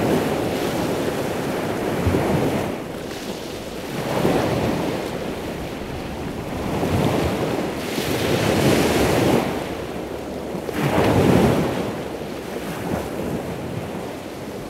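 Sea waves breaking and washing ashore, the surf swelling and fading every two to four seconds.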